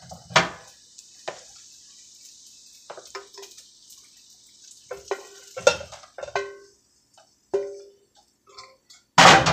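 Metal spatula clinking, tapping and scraping against a frying pan and serving platter while bacon is dished up, several strikes ringing briefly. A faint steady sizzle from the pan stops about six seconds in, and a loud clatter comes near the end.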